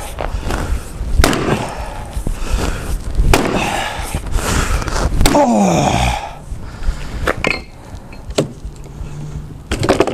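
Axe chopping into a wooden stump, with a series of separate sharp strikes about every one to two seconds.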